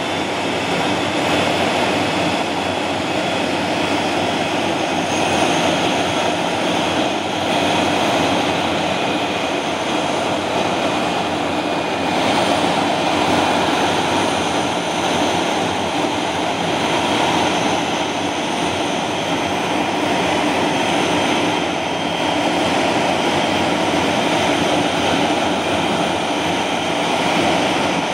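Bluebird K7 hydroplane's Bristol Siddeley Orpheus jet engine running steadily on a stationary engine run: a continuous rushing jet noise with a high, steady turbine whine over it.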